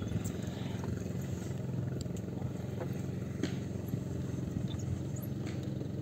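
A small motorboat engine running steadily at low revs, with a few faint clicks over it.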